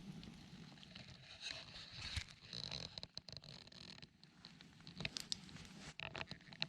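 Wood campfire crackling, with scattered sharp pops, several of them in quick succession near the end. A brief rasping hiss comes about two and a half seconds in.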